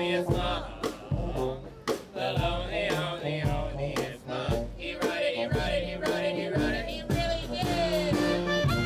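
Jazz band music: a steady bass line under regular drum hits, with a wavering lead melody on top.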